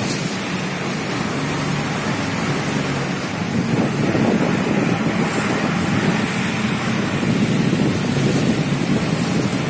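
Steady rush of wind and road noise from a moving vehicle, with a low engine hum underneath.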